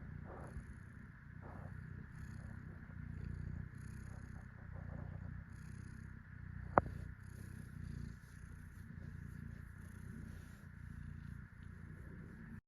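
Domestic cat purring steadily with a low, pulsing rumble while being cuddled. A single sharp click sounds about seven seconds in.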